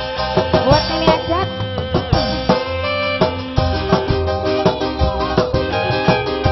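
Live band music: drums beating a quick, steady pattern, about four strokes a second, under sustained melody instruments with short sliding notes.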